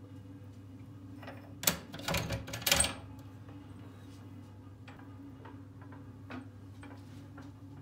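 A window frame and its catch being handled: a cluster of loud clicks and scrapes about one and a half to three seconds in, then a few faint ticks, over a steady low hum.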